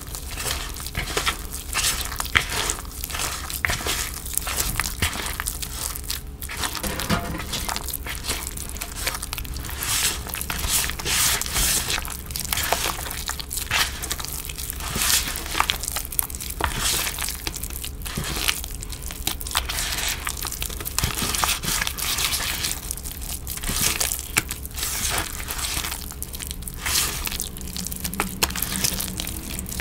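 Wet, dyed gym chalk crushed and kneaded by hand in a plastic bowl: a dense, gritty crunching and squishing of damp chalk chunks and thick paste, one irregular crackle after another without a break.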